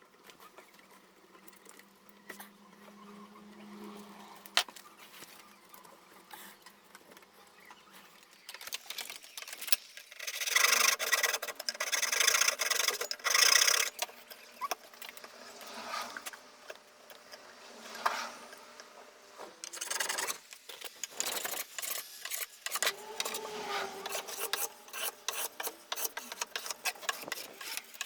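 A hand tool scraping and rubbing on wood in irregular strokes. It is faint for the first few seconds, loudest in a continuous stretch of about three seconds midway, then goes on in short, uneven strokes.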